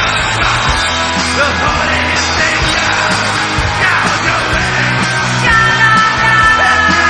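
Loud rock music with shouted vocals and a steady beat.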